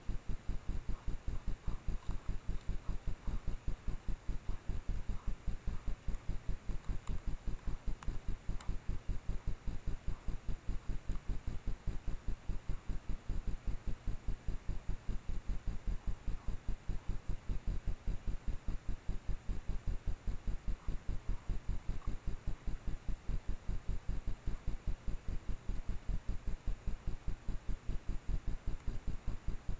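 A rapid, perfectly even low thumping, about five beats a second, runs under a steady hiss, with faint scattered rustling ticks in the first half: a common raccoon rustling in leaf litter just out of view of the trail camera.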